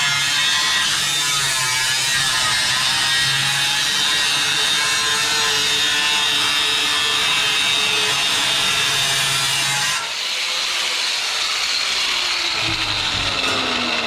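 A power tool cutting steel plate, a steady loud grinding noise. About ten seconds in it breaks off and gives way to a falling whine.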